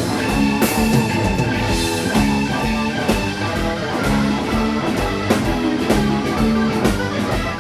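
Live blues-rock band playing an instrumental break: electric guitar over a steady drum kit beat and bass.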